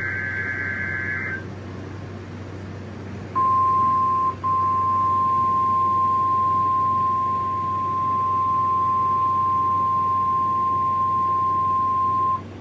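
NOAA Weather Radio heard through a receiver: the end of a screechy, warbling SAME digital data burst, then after a short gap the 1050 Hz warning alarm tone, one steady high beep held about nine seconds with a brief dropout about a second after it starts. Receiver hiss and hum run underneath.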